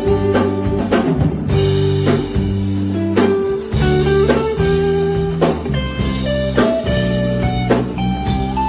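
Instrumental music with no singing: a plucked guitar melody over a drum-kit beat.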